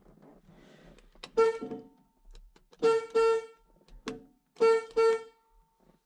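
Car horn of a 1976 Chevrolet Camaro honked in about six short blasts, some in quick pairs, as the horn pad on a newly fitted steering wheel is pressed to test it.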